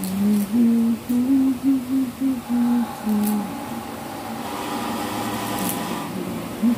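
A woman humming a tune in short, low, stepping notes for the first three and a half seconds, then a softer held hum, with a few faint clicks.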